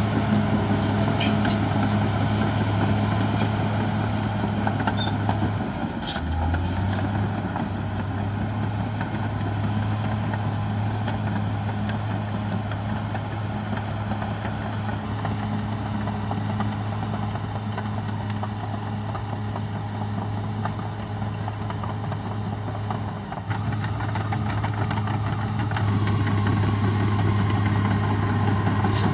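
Caterpillar D6R XL bulldozer's diesel engine running at a steady note, dipping briefly about six seconds in and picking up louder near the end, with a few sharp knocks in the first six seconds.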